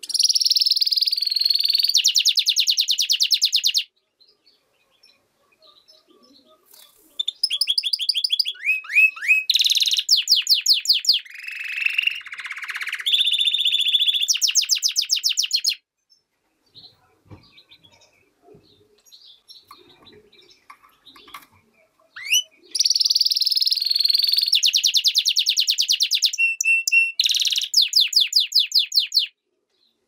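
European goldfinch × canary hybrid singing: three long bursts of high, fast trills and twittering, rapid repeated notes, with short pauses between them.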